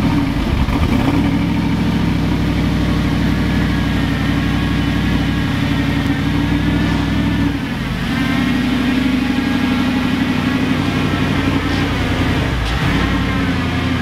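2009 Audi R8's engine and exhaust idling loudly just after start-up, steady apart from a brief change in the idle about halfway through and again near the end. The owner calls the exhaust sound absolutely terrible and means to replace the exhaust.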